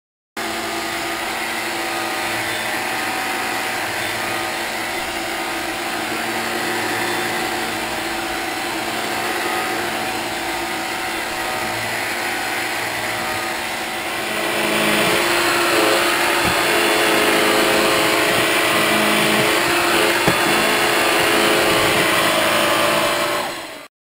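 Hoover Platinum Collection cordless stick vacuum running, a steady motor whine with a hum under it as it is pushed over a hardwood floor. It grows louder about halfway through, with a few light clicks in the second half.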